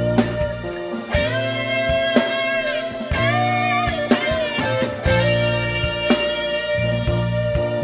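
Rock band playing live: a sustained electric guitar lead with long held notes bent up and down, over bass and drums.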